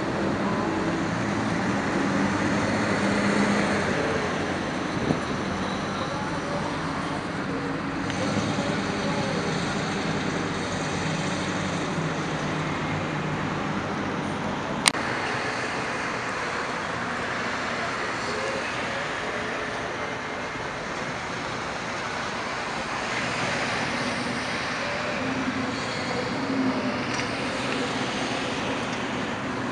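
Street traffic: cars driving past, with engine and tyre noise, one engine running strongest in the first third and fading away. A single sharp click about halfway through.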